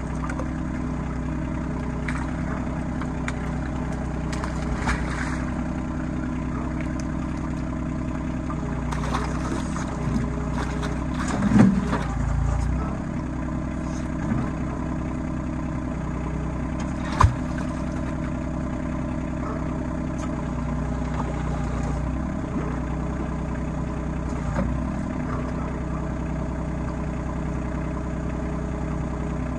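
RK25 compact tractor engine running steadily, with a short swell partway through and a single sharp clank a little later.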